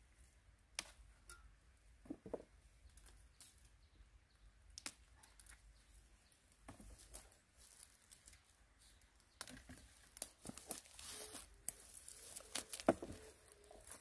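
Scattered snaps and crackles of Japanese angelica tree shoots (dureup) being broken off their thorny stems by hand, with dry branches rustling. The rustling and crackling grow busier from about ten seconds in.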